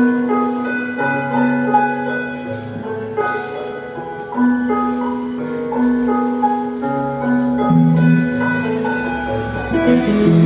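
Live rock band playing an instrumental passage on electric guitars, bass and drums, with long held notes changing every second or so and light taps on top. The music grows fuller and louder near the end.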